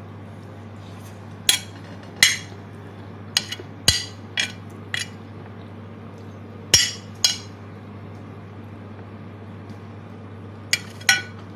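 A metal spoon clinking against a ceramic plate while scooping rice: about ten sharp clinks in loose pairs and clusters, over a steady low hum.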